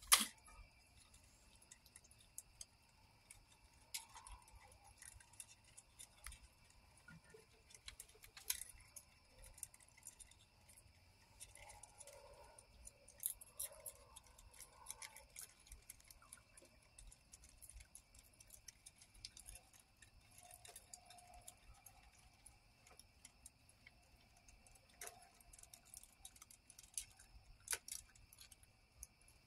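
Raccoons feeding, heard as scattered small clicks and taps, with one sharper click right at the start, over a faint steady high hum.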